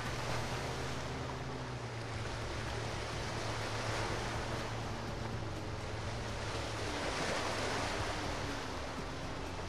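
Steady rush of water from a boat's wake, swelling and easing, over a low, steady boat-engine hum.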